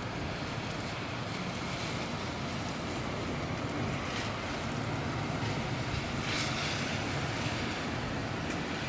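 Steady rushing noise of gusty wind and rain, swelling slightly about four and six seconds in.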